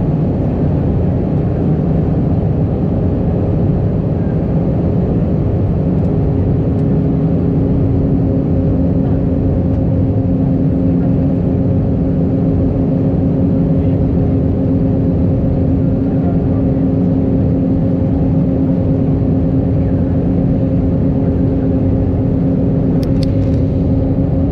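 Steady cabin noise of an Airbus A319 in flight on its approach, heard inside the cabin over the wing: the engines and the airflow make a loud, even rumble with a few low steady hums. A further hum comes in about six seconds in, and there are a couple of faint clicks near the end.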